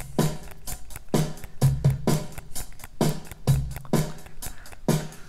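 Soloed drum-kit track of a studio recording playing back: kick drum, snare and cymbals in a steady groove.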